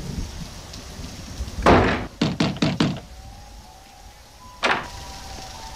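A door slams shut, followed at once by four quick knocks on it and, about a second and a half later, one more knock.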